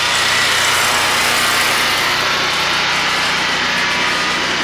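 Predator 13,500 portable generator's gasoline engine running steadily on wood gas from a gasifier.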